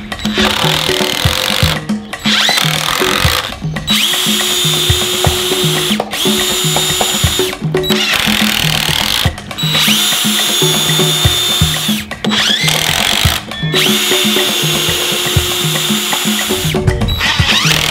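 DeWalt 20V cordless drill/driver driving screws into wooden framing, running in several spurts of a second or two with short pauses between, its motor whine rising as each run starts. Background music with a steady beat plays underneath.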